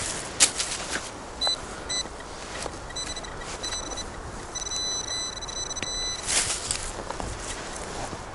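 Metal detector target tones as the coil sweeps: several short high beeps, then a longer held tone of nearly two seconds, a strong signal from metal in the ground. Leaves rustle and crackle near the start and end.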